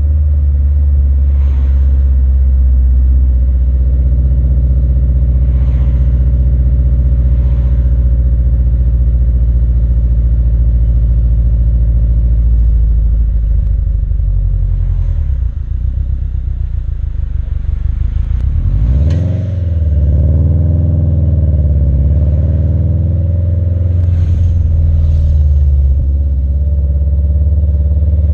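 Exhaust of a Subaru WRX STI's turbocharged flat-four engine, fitted with an Invidia Q300 exhaust, recorded at the tailpipes while driving: a steady, loud low drone. About two-thirds of the way in, the engine note sags and then climbs sharply under throttle before settling, with a few brief clatters along the way.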